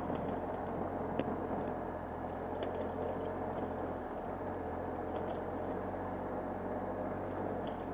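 2015 Triumph Explorer XC's three-cylinder engine running steadily under a motorcycle ride, mixed with wind and road noise. A few faint ticks are heard along the way.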